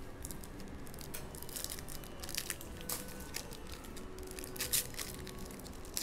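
Foil wrapper of a 2021-22 Panini Spectra basketball hobby pack being torn open and crinkled by hand, in scattered crackles with louder bursts about two and a half and five seconds in and again at the end.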